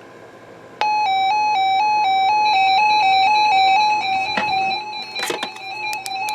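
Weather alert radio's electronic alarm: a loud buzzy beeping that alternates between two pitches about twice a second, starting about a second in. Crackling clicks of static break in over it in the second half.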